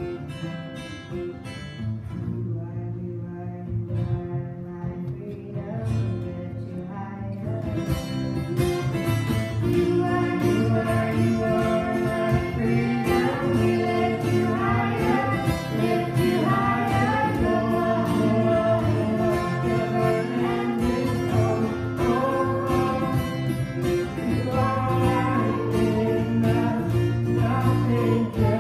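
Live song: an acoustic guitar played with a woman singing. It starts softer and swells to a fuller, louder level about eight seconds in.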